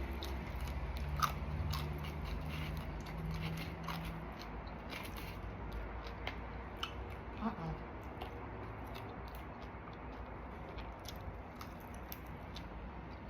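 A person biting and chewing crunchy battered fried food close to the microphone, with scattered small crunches and mouth clicks.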